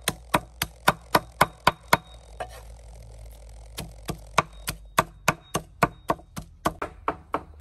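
Steel meat cleaver chopping raw meat on a round wooden block, hand-mincing it. The sharp strikes come about three to four a second, pause for a second and a half near the middle, then go on at about three a second.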